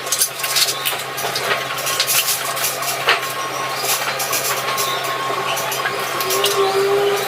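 Irregular clicks and clinks over a steady hum, with a short held tone about six seconds in.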